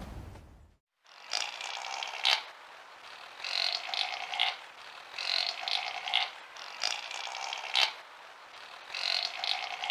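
Chamois calling: a series of about five short calls, roughly a second and a half apart.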